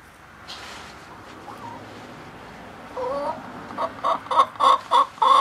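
A hen sitting in a hay nest clucking: a faint short call about a second and a half in, then from about three seconds in a quickening run of loud, repeated calls at about three a second.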